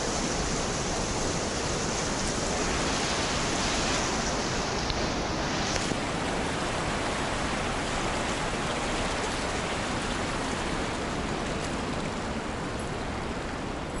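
Shallow stream water rushing steadily over its stony bed, a constant hiss and rush; it is hissier for the first half while the walker is under the bridge, then softer in the highs after about six seconds.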